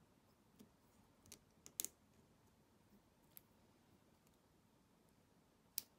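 Near silence broken by a few short sharp clicks and taps as a strap and its fittings are worked onto a Garmin Descent Mk2i dive computer. The loudest clicks come about two seconds in and just before the end.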